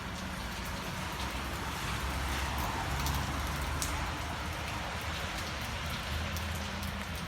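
Steady rain falling on hard surfaces, with scattered sharp drops and a low rumble underneath.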